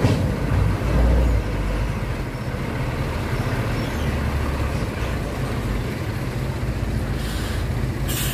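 Diesel engine of a Hino tank truck running at low speed under load as the truck crawls through deep potholes, with swells in the rumble about a second in and about four seconds in. Two short hisses near the end.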